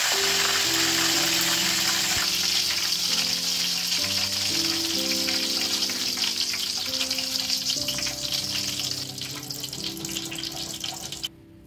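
Curry leaves sizzling in hot oil in a kadai, held in a wire-mesh spider strainer. The frying hiss is loud at first and fades steadily, then cuts off suddenly near the end.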